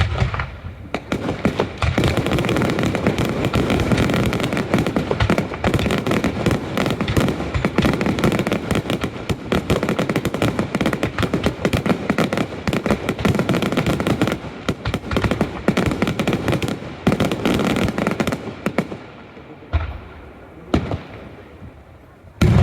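Daylight fireworks display: a dense, rapid barrage of crackling reports and bangs. It thins out about three-quarters of the way through, leaving a couple of separate bangs, and loud bangs start again at the very end.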